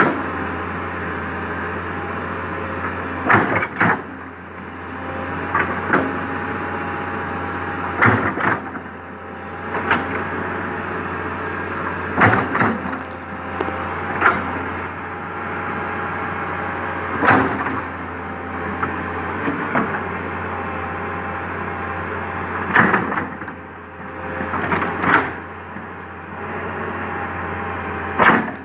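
Komatsu PC200 hydraulic excavator's diesel engine running steadily while digging, with short knocks and clanks every two seconds or so from the bucket and boom working the ground.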